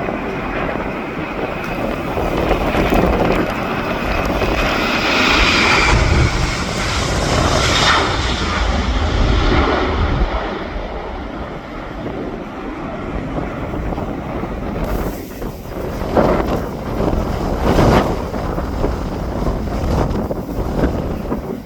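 Passenger aircraft passing close with its engines running, a dense roar and a high whine that drops in pitch as it goes by, loudest about six to eight seconds in. Gusts of wind buffet the phone's microphone near the end.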